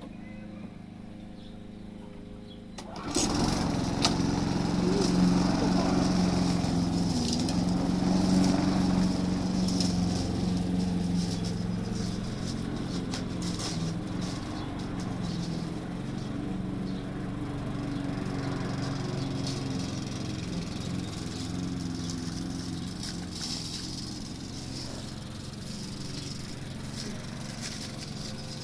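The four-stroke petrol engine of a Champion 14-inch rotary lawnmower (Briggs and Stratton 3.5 hp) is running steadily. About three seconds in it suddenly gets much louder, then it runs on at full speed and gradually grows quieter.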